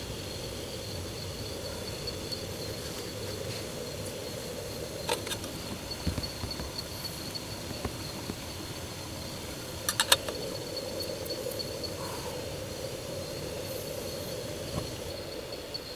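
Insects chirping in a steady, fast high-pitched trill over a steady lower hiss. A few sharp clicks are heard, the loudest a quick cluster about ten seconds in.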